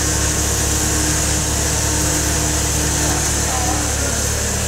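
Toyota Hilux's engine running steadily as the 4x4 crawls up a muddy slope on a taut winch line.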